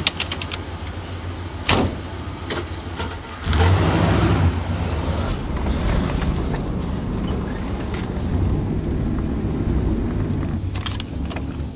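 A few clicks and a sharp thump, then the van's engine starts about three and a half seconds in and settles into a steady running rumble.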